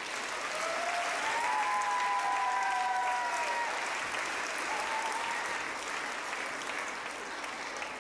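Audience applauding and cheering, with a few drawn-out cheering cries over the clapping in the first half. The applause swells over the first couple of seconds and then slowly dies away.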